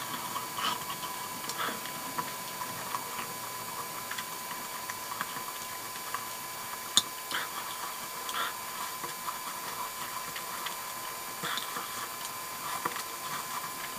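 Close-miked mouth sounds of a person chewing spicy instant noodles: scattered soft wet smacks and clicks, with one sharp click about seven seconds in. A faint steady tone hums underneath.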